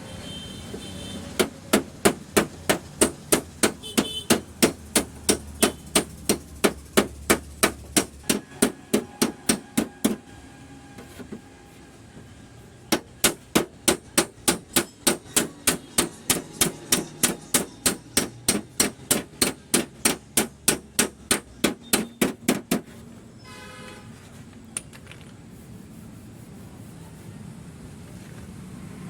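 Small hammer tapping a knockdown tool against the steel fender of a Suzuki Swift in quick, even strokes, about three or four a second, in two long runs with a pause of about three seconds between them. This is paintless dent repair: tapping down the high spots around a dent.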